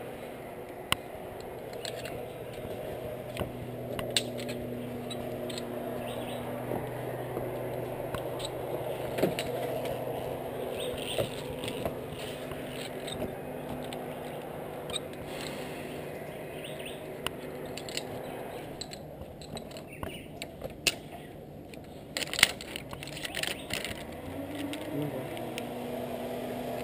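Scattered metal clicks and clinks of zipline hardware, the trolley and carabiners being handled and clipped onto the steel cable, over a steady low hum.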